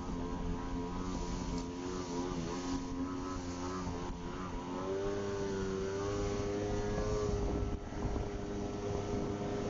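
Jet ski engine running under way, its pitch rising about halfway through as the throttle opens and then holding steady. It is recorded through a phone sealed in a plastic bag, with a low rumble of wind and water beneath.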